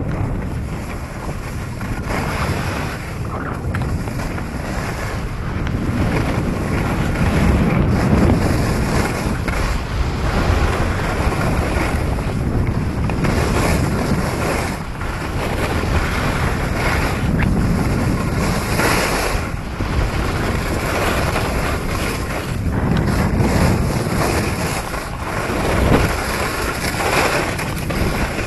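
Wind rushing over the microphone of a skier moving downhill, swelling and easing in loudness, with skis sliding over the snow underneath.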